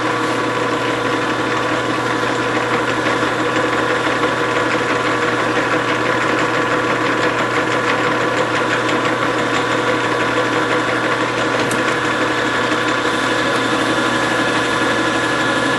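Grizzly G4003 metal lathe running steadily under threading feed, its motor and gears giving a steady whine, while the tool takes a light scratch pass to check the thread pitch.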